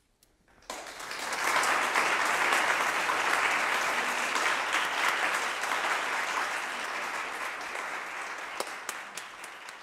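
Audience applauding: it breaks out suddenly about a second in after near silence, builds quickly to a steady level, and slowly tapers off near the end.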